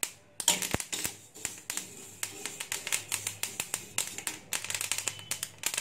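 Flaxseeds popping in a hot, dry kadhai: a dense run of sharp, irregular clicks. The crackling is the sign that the seeds are roasting through.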